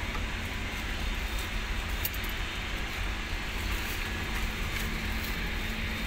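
A steady low rumble and hiss with a faint steady hum, unchanging throughout, with a few faint ticks.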